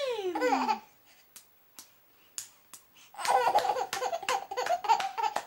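Baby laughing and clapping his hands in a small room: a laugh that slides down in pitch, then a second or two of scattered claps, then excited laughter again with quick claps over it.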